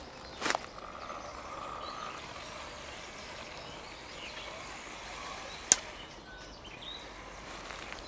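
1:10 motor-on-axle RC rock crawler's electric motors running faintly as it crawls through a shallow stream, with water around its wheels. A single sharp click comes a little past the middle.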